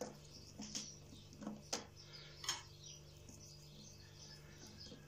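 Soft taps and rustle of a hand scattering chopped parsley and green onion over an oiled sheet of rolled dough on a wooden board, a few light taps in the first two and a half seconds. Faint high chirps and a low steady hum run underneath.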